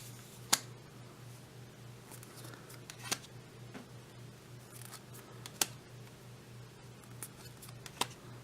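Yu-Gi-Oh trading cards handled one at a time, each making a short sharp click, four in all about two and a half seconds apart, over a low steady hum.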